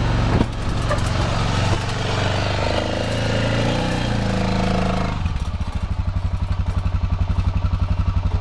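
Arctic Cat ATV engine running as the quad creeps forward, its revs rising and falling, with a sharp knock just after the start. About five seconds in it settles into an even, pulsing idle.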